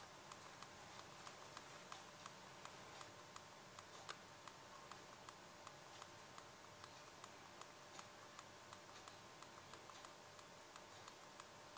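Faint, evenly spaced clicks, about three a second: a phone's volume key pressed over and over to scroll down a recovery-mode file list.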